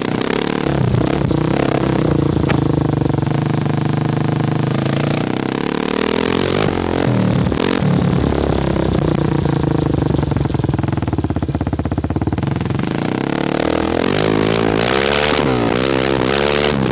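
Kawasaki KFX 400 ATV's single-cylinder four-stroke engine heard close to the muffler, revving up and down as it is ridden. Twice, about halfway through and again near the end, it breaks into static-like crackling from exhaust backfiring and popping, and the close microphone distorts.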